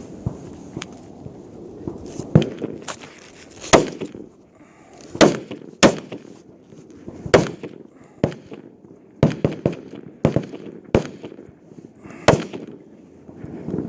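Service rifles firing slow-fire sighter shots along a high power rifle firing line: about a dozen sharp cracks at irregular intervals, a few loud and close, others fainter from further down the line.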